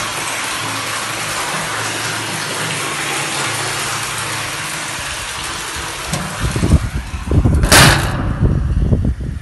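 A thin stream of well water pouring from an inlet pipe into a cistern, splashing steadily onto the water surface, with a faint low hum underneath. About six seconds in, loud irregular low rumbling takes over, with a brief loud noise a little before the end.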